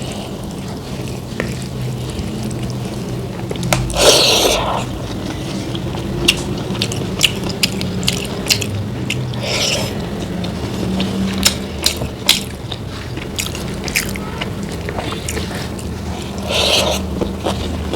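Close-miked eating: chewing and biting, heard as many sharp crackling clicks, with three louder noisy bursts of about half a second spread through, over a steady low hum.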